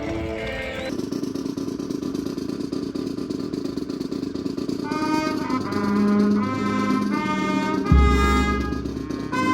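Brass band music: horns play short punchy phrases from about halfway in, over a dense steady low rumble, with a deep bass boom about eight seconds in.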